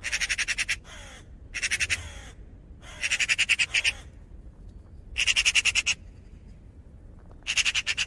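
Raven calling: five harsh calls, each under a second long and made of rapid pulses, spaced one to two seconds apart.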